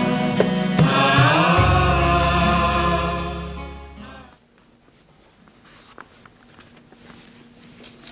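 Programme theme music with chanted voices over a low sustained drone, fading out about four seconds in. It is followed by quiet room tone with a few faint clicks.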